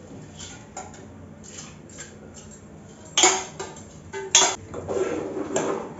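Stainless-steel kitchen utensils clinking: a spoon and steel bowl handled, with two sharp metallic clanks about three and four and a half seconds in.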